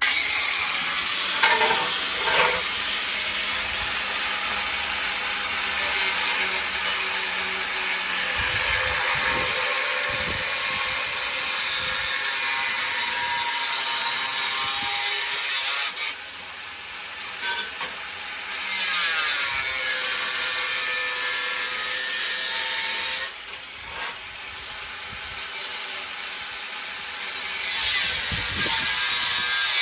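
Power tool cutting sheet-steel body panel, running loud and steady, easing off twice in the second half as the cut pauses.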